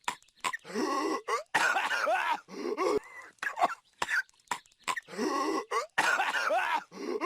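A cartoon character coughing hard and without a break: short sharp coughs in quick succession alternating with longer strained hacks whose voice wavers up and down in pitch.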